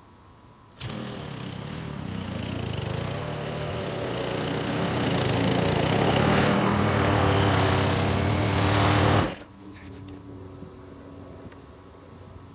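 Powersmart 21-inch 144cc walk-behind mower engine running, starting suddenly about a second in and getting steadily louder, then cutting off abruptly about nine seconds in.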